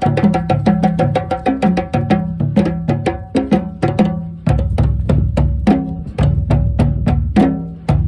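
West African drum ensemble: djembes struck by hand over a set of dundun bass drums played with sticks, in a fast, steady interlocking rhythm. The deep dundun notes get heavier about halfway through.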